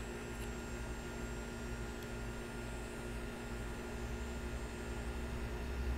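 A steady background hum over a faint hiss, with no distinct events. A low rumble underneath grows louder near the end.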